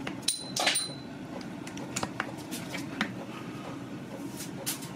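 A small cone from the AEA Challenger .50's barrel shroud drops out of the open front of the barrel and lands with a short ringing clink about half a second in. A few light clicks of the rifle being handled follow.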